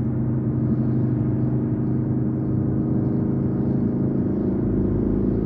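Vehicle engine and road noise heard from inside the cab while driving at a steady speed: an even drone with a steady low hum.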